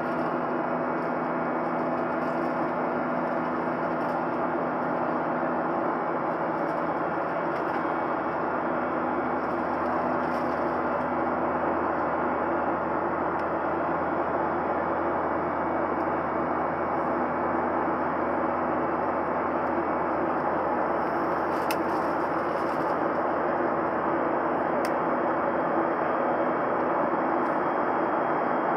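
Steady cabin noise of a Boeing 737-900: the hum of its CFM56-7B turbofan engines over an even rushing noise. A few steady low tones fade about six seconds in.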